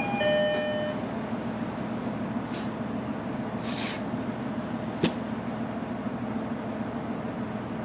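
JR Hokkaido H100-series diesel-electric railcar standing with its engine idling, a steady hum. A chime ends in the first second, short hisses of air come about two and a half and four seconds in, and a sharp click about five seconds in.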